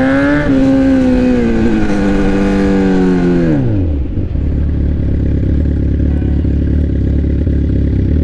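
Sport bike engine with a straight pipe, revving up, its pitch dropping suddenly about half a second in as at a gear change. The revs then ease down, fall steeply near four seconds in as the throttle closes, and settle into a steady low note.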